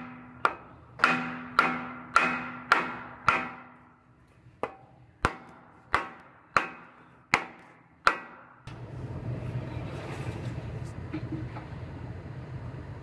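A hammer striking a wooden block held against a new steel frame section of a Ford F-150 to drive it into place: about a dozen sharp blows with a short ring, in two runs, stopping about eight seconds in. After that a steady low hum.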